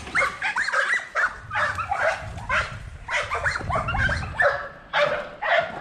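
Dogs barking and yipping in a quick, continuous string of short barks.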